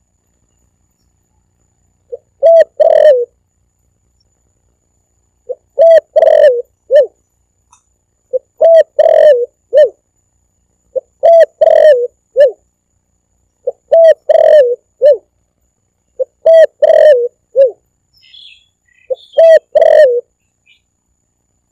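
Spotted dove (tekukur) cooing: a phrase of several low coos repeated about every three seconds, seven times, with a few faint chirps between the last phrases.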